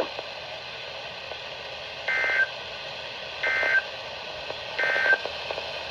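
Three short, identical warbling data bursts about a second apart over steady radio hiss: the EAS/SAME digital tones that a weather radio sends as its end-of-message code after a warning.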